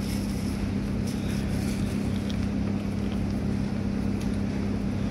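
Steady low machine hum with a constant drone and even background noise, like a running motor or engine.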